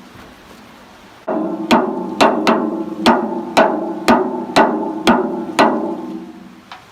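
Hammer blows tapping a tight-fitting bearing onto a waterwheel shaft: about ten strikes, roughly two a second, each leaving a ringing tone that carries between them.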